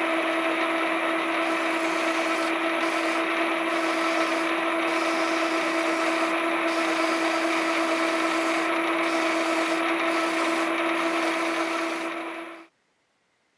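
A motor-driven machine spins up and runs at a steady pitch under a continuous abrasive rubbing. It cuts off suddenly about a second before the end.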